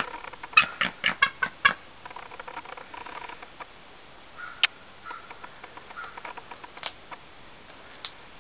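An eagle giving a quick series of about six short, high, thin chirping calls about half a second in, then quieter scattered ticks with one sharp click a few seconds in.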